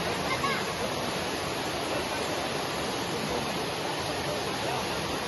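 A waterfall and river rushing, a steady even roar of falling and flowing water.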